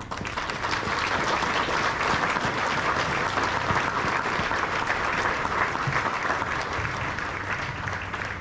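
Audience applauding: dense, steady clapping that starts at once and fades a little near the end.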